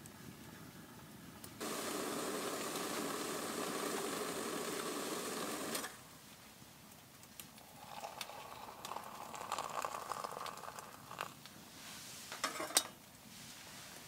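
Metal cookware being handled on a wood stove: soft scrapes and light clinks of a steel mug and pot, with a few sharp clinks about twelve seconds in. Before that, a steady hiss starts and stops abruptly during the first half.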